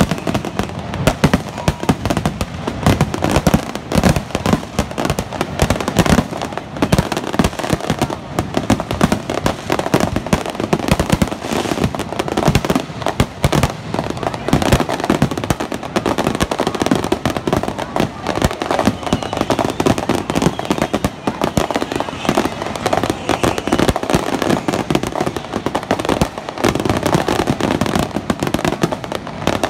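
Aerial fireworks display, many shells bursting in a rapid, continuous string of bangs with no pause.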